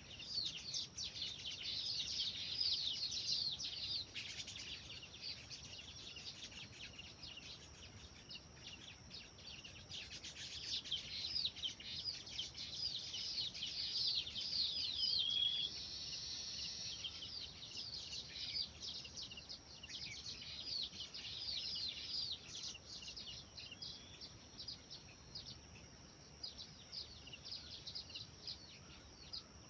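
A chorus of small birds chirping, with many quick, high, downward-sweeping chirps in dense runs that swell and fade, loudest near the start and around the middle.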